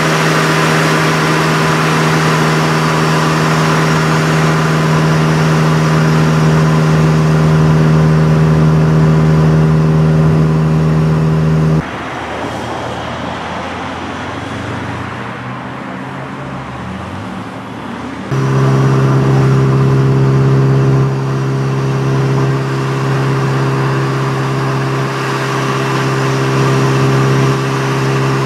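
Motorcycle engine running steadily at highway cruising speed, a constant drone over wind and road noise. About twelve seconds in it drops away to a quieter, rougher rumble for about six seconds, then the steady drone returns at a slightly lower pitch.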